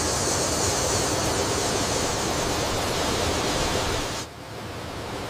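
Steady rushing noise with no distinct events. About four seconds in it drops abruptly to a quieter, softer rush.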